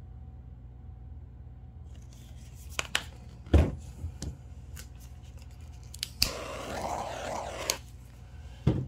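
Scattered light clicks and knocks of painting supplies being handled on a work table, with one heavier knock about three and a half seconds in. A little after six seconds a click is followed by a hiss lasting about a second and a half, which ends with another click.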